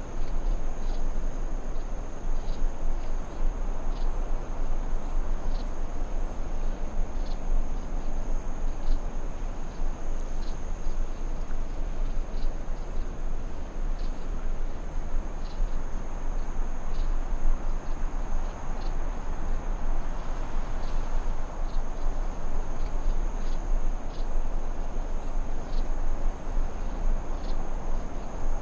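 Insects trilling in a steady high ring, with short high ticks about once a second, over a steady hiss and low rumble.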